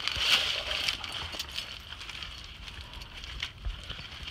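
Climbing rope being handled and pulled through a tangled macrame hitch, giving scattered crackling and rubbing clicks over a low, uneven rumble.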